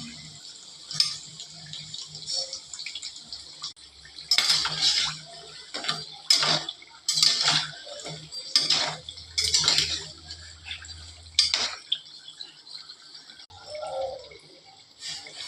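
Water splashing from a tap in irregular bursts, with dishes and utensils clattering, as at a kitchen sink.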